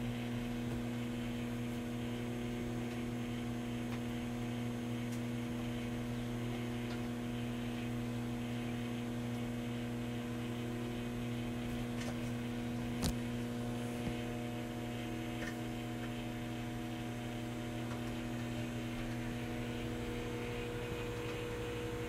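Hamilton Beach microwave oven running mid-cycle, a steady electrical hum, with a single click about 13 seconds in.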